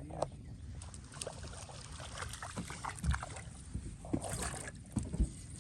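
Light splashing and trickling of water with a few dull knocks, the loudest about three seconds in and again near the end, over a steady low rumble.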